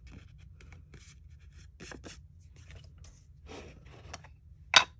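Light rustling and tapping of a kraft-paper piece and craft supplies being handled on a tabletop, with one sharp click near the end as a plastic ink pad is opened.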